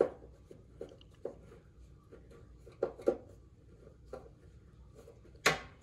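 Hand screwdriver driving a screw into a stove's sheet-metal back panel: scattered clicks and scrapes of the tip and screw on the metal, about seven in all, with one sharp metallic clack near the end that is the loudest.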